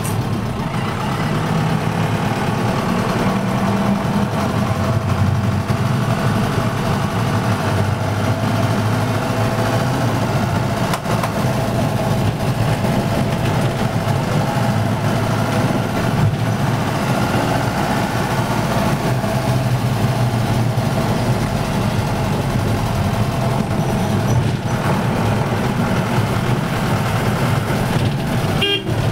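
Steady motor vehicle engine and road noise, running continuously.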